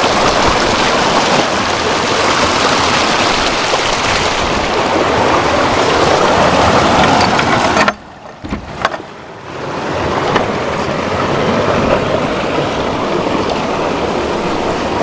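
Fast-flowing mountain stream water rushing steadily and loudly over rocks. About 8 s in the rush drops away for a couple of seconds with a few light knocks, then a similar steady rush comes back.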